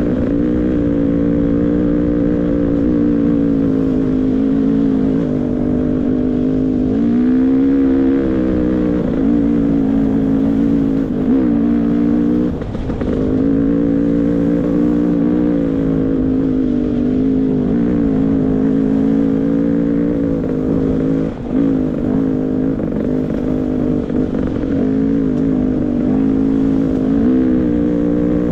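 Beta 300 RR two-stroke dirt bike engine running at a fairly steady trail pace, revs rising and falling with the throttle. Revs climb about eight seconds in, and the engine briefly drops off twice, around the middle and about three-quarters through.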